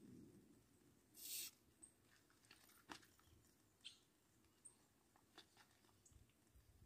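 Near silence, broken by a short faint hiss just over a second in, a click near the middle and a few fainter scattered ticks.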